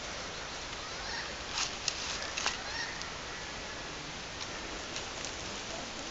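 Quiet outdoor background: a steady hiss with a few faint short clicks and rustles in the first half.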